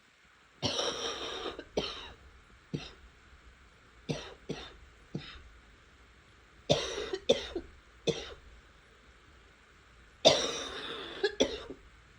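A person coughing in about four bouts a few seconds apart, each starting with a long cough and followed by one to three shorter coughs.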